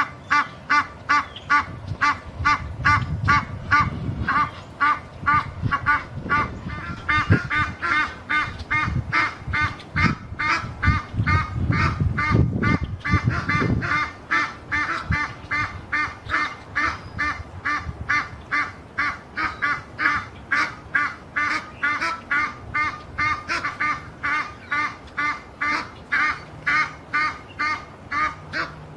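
Female Egyptian geese honking loudly and persistently in a fast, even series of harsh calls, about three a second, with more than one bird overlapping in the middle. This is a territorial display meant to drive other geese of the flock away.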